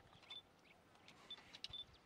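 Near silence with a few faint, short high chirps and ticks.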